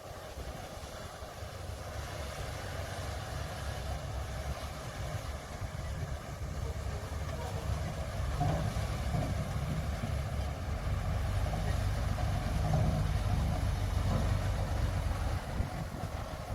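Heavy diesel earthmoving machinery running with a low, steady engine rumble that builds up louder through the middle and eases off slightly near the end.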